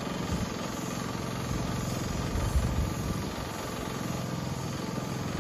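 Small gasoline engine running steadily, driving the pump that feeds the spray hose.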